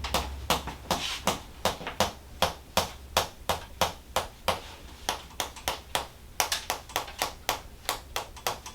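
Rapid, evenly spaced percussive taps on a patient's body, about three a second, quickening slightly in the last couple of seconds: percussion work on the muscles during a chiropractic treatment.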